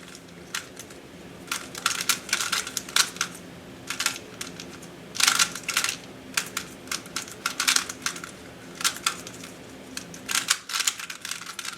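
GAN 356i smart speedcube being turned fast during a solve: quick, irregular flurries of plastic clicks and clacks as the layers turn. A faint steady hum sits beneath.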